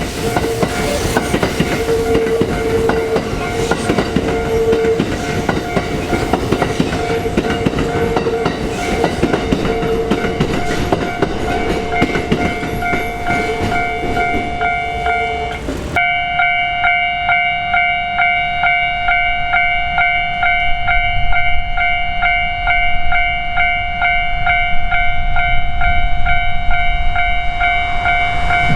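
Japanese level-crossing warning bells ringing in fast, even strokes, while a Kintetsu electric train runs over the crossing with wheel clatter. About halfway through the train noise stops suddenly and the bells ring on alone.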